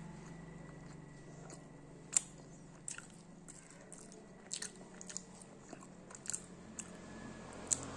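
A crunchy sweet being bitten and chewed: about a dozen sharp, crisp crunches and mouth clicks at irregular intervals, the loudest about two seconds in and just before the end.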